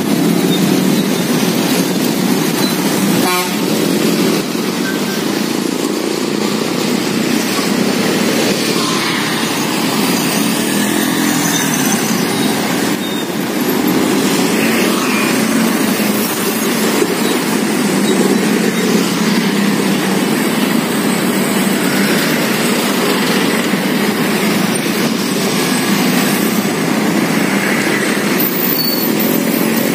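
Busy road traffic: motorcycle, car and truck engines running and passing in a steady, continuous din, with a short horn beep about three seconds in.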